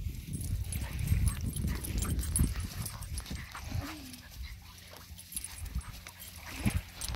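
A young Weimaraner puppy whimpers briefly about four seconds in, its pitch rising and falling, over a low rumble that is loudest in the first few seconds.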